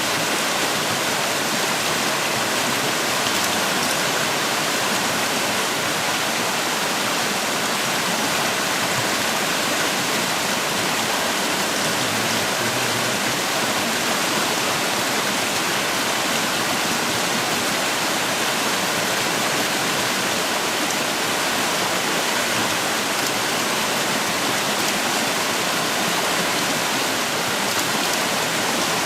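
Creek water rushing, a steady, even noise.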